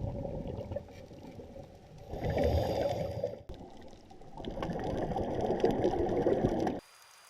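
Underwater bubbling and water noise from scuba divers' exhaled regulator bubbles, dull and muffled, in two longer surges of bubbling, then cutting off suddenly near the end.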